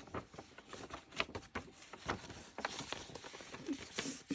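Irregular light clicks, taps and rustles of small items and packaging being handled and unwrapped.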